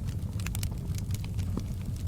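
Wood fire crackling in a fireplace: a steady low rumble of the flames with scattered sharp pops and snaps from the burning logs.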